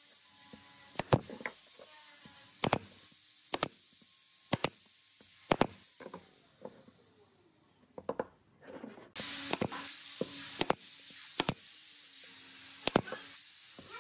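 Pneumatic nail gun firing fasteners into pine blocks: sharp shots about once a second, then a pause, then more shots, some in quick pairs near the end. A steady hiss runs under the later shots.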